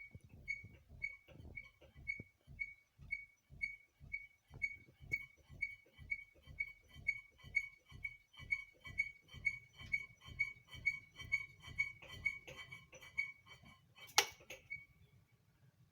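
Ceiling fan running off balance because one blade is missing, its wobble making a rhythmic squeaky tick with a low thump about twice a second. Near the end there is one loud knock, then the ticking stops and a low hum remains.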